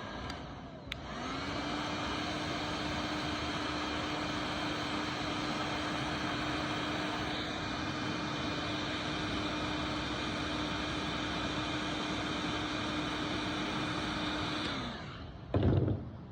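Electric heat gun blowing hot air to preheat a carburettor float for soldering: its fan spins up about a second in, runs steadily with a hiss and a steady motor hum, and winds down shortly before the end. A short loud knock follows near the end.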